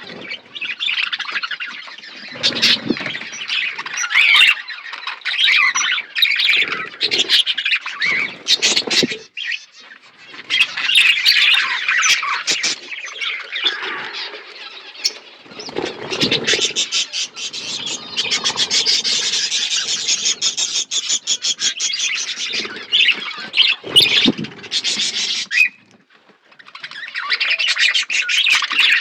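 A flock of budgerigars chirping and chattering continuously, many calls overlapping, with a short lull near the end.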